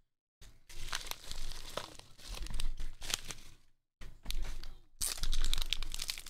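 Tape-sealed padded bubble mailer being torn open, then a clear plastic bag crinkling as the stack of cards inside is handled: a run of tearing, crinkling rustles with many small clicks, cut to dead silence twice, briefly at the start and again about four seconds in.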